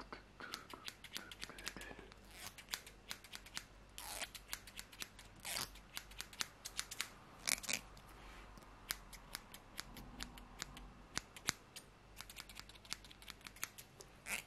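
Hairdressing scissors snipping close to the microphone in quick, irregular runs of sharp clicks, with a few louder strokes now and then.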